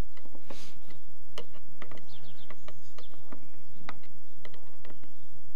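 Hand ratchet clicking in short irregular runs as screws are driven into a kayak's rudder mounting bracket.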